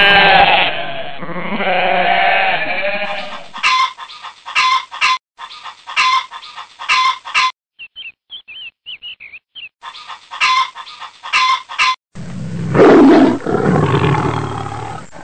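A goat bleating, then a string of different animal calls cut one after another: bursts of short repeated calls, a few faint high chirps, more short calls. About twelve seconds in, a loud deep roar begins.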